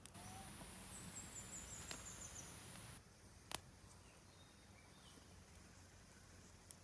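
Faint outdoor ambience: a soft hiss for about three seconds that cuts off suddenly, a short high stepped trill partway through, and a couple of sharp clicks, the louder one about three and a half seconds in.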